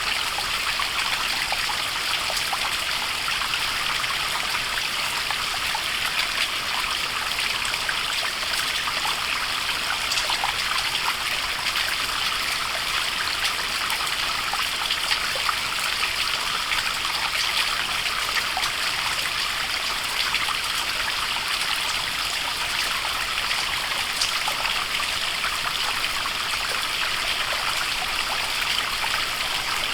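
Small waterfall splashing and trickling into a stream: a steady rush of falling water with fine, close splatter.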